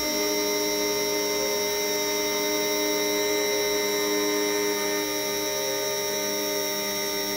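CNC router spindle running at speed while a 0.5 mm conical engraving bit carves lines into birch plywood: a steady whine made of several held tones.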